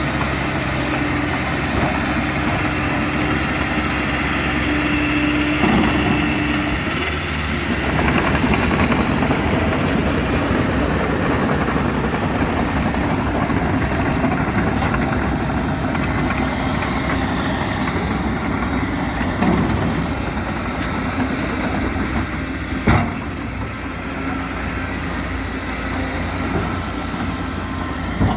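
Diesel engines of a backhoe and a bulldozer running while they work, steady at first, then louder and rougher with clanking from about eight seconds in. One sharp metallic knock comes near the end.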